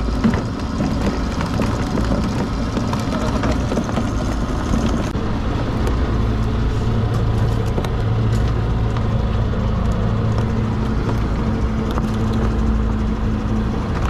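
Fishing boat's engine and trap-hauling machinery running steadily, a continuous low drone with light clicks and knocks as the trap line comes aboard.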